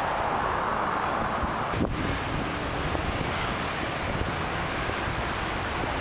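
Wind buffeting a helmet-mounted camera's microphone as a bicycle rides along a road, mixed with steady road traffic noise. There is a single short bump just under two seconds in.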